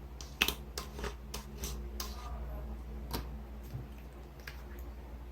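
Freshly made glue-and-borax slime being worked in a cup, giving irregular sticky clicks and soft squelches.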